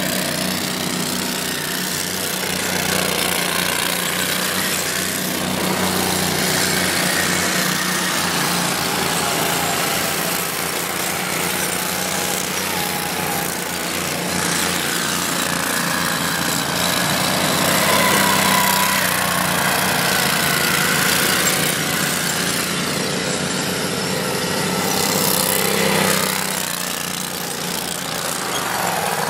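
Dune buggy engine running and revving as the buggy drives over sand, its pitch rising and falling. It gets louder near the middle and again near the end as the buggy comes close.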